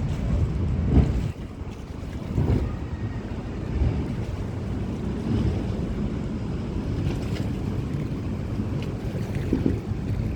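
Wind buffeting the microphone in gusts over a steady low rumble of river water and passing boats.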